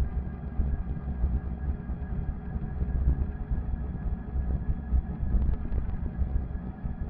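Riding noise from an electric fat bike on asphalt: uneven wind rumble on the bike-mounted camera's microphone, with a steady multi-tone whine from the bike's 250 W electric motor running at constant speed.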